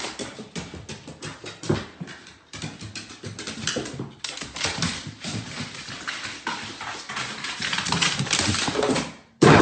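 Dog's claws clicking and paws knocking on hardwood stairs as it goes down, a quick, irregular patter of many small taps.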